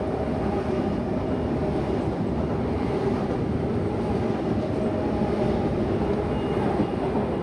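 Double-deck Oscar H-set electric multiple unit, two four-car sets coupled, passing through the station at speed without stopping: a steady rumble and rush of wheels on the rails with faint steady tones over it.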